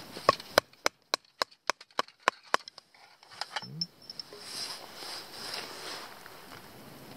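Knife working a stick of kindling: a quick run of about ten sharp wooden knocks, roughly four a second, then a few softer clicks and a rustling scrape.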